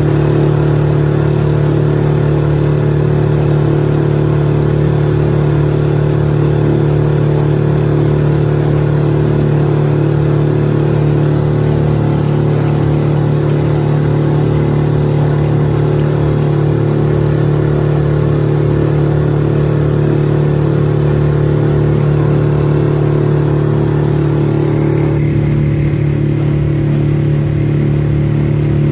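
Suzuki DF6A 6 hp single-cylinder four-stroke outboard running steadily at cruising throttle, pushing a jon boat along. It is fed from an external fuel tank and running smoothly.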